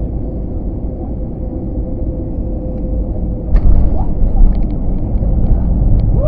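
Inside the cabin of an easyJet Airbus jet: steady engine and airflow drone on final approach, with a faint steady tone. About three and a half seconds in, the main wheels touch down and it turns suddenly louder into a rough runway rumble with cabin rattles and clicks.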